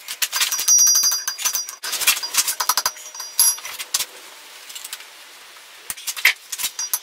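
Hand hammer beating down a hot layered steel billet on an anvil in quick blows, the anvil ringing high with each strike. The hammering stops about three seconds in, leaving a few light metal clinks.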